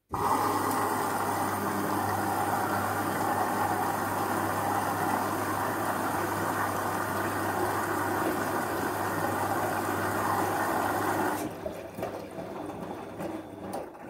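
Bosch front-loading washing machine running mid-cycle: a steady motor hum with rushing water noise that starts suddenly, then drops away abruptly about eleven and a half seconds in, leaving a quieter, uneven sound until it cuts off at the end.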